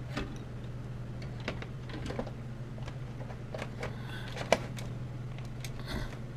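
Irregular light clicks and clacks of hardware being handled inside an open desktop PC case, with one sharper click about four and a half seconds in, over a steady low hum.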